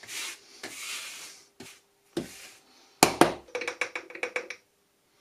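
Workbench handling noises: two short brushing sweeps and a few knocks, then a loud clunk and a quick rattle of about eight clicks with a metallic ring as the steel hand saw is set down on cardboard.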